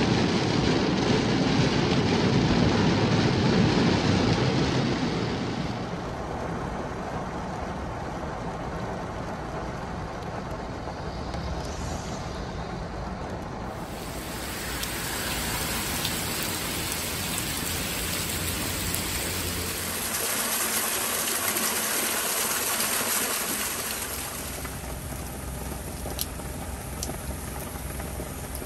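Steady rain, first heard from inside a moving car, with rain on the glass over a low road rumble. It then changes to rain falling outdoors on a wet street and on large leaves, with a few sharp drips near the end.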